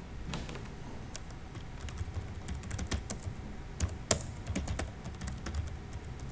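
Typing on a computer keyboard: irregular runs of key clicks, the loudest strokes about four seconds in.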